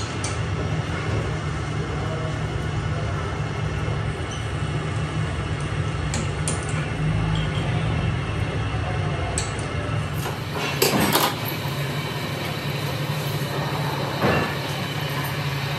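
Belt-driven metal-turning lathe running with a steady low hum, with a few light metallic clicks and two louder metal clatters, one a little past the middle and one near the end.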